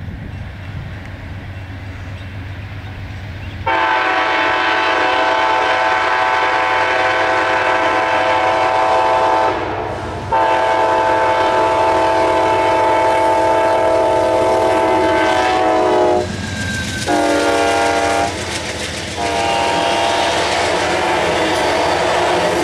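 Amtrak GE Genesis P42DC diesel-electric locomotive running toward the camera at speed, then sounding its multi-tone air horn in the long-long-short-long grade-crossing signal. The final long blast is a little fainter as the locomotive passes, and the passenger cars' wheels click over the rail joints.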